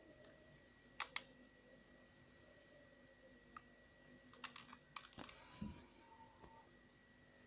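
Sharp, light clicks and taps of small parts or tools being handled on a workbench: a quick pair about a second in, a single tap, then a cluster of clicks around five seconds, over a faint steady high whine.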